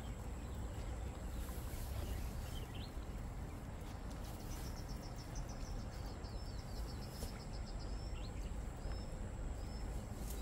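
Steady low outdoor rumble of wind and river. About halfway through comes a short, quick run of high chirps.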